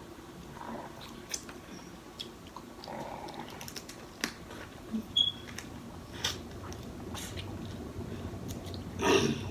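Close-miked eating of snow crab legs: scattered clicks and snaps of shell, with chewing and smacking. A louder, longer noisy sound comes near the end.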